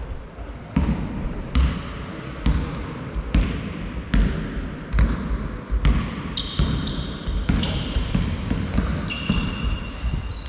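Basketball being dribbled on a sports-hall floor, a bounce a little more than once a second, each with a short echo. From about six seconds in, short high squeaks of basketball shoes on the court floor join the bounces.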